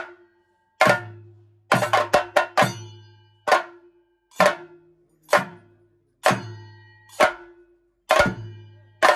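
Chenda drums struck with sticks in a slow beat of single loud strokes about once a second, with quick flurries of several strokes about two seconds in and near the end. Each stroke rings on with a low hum.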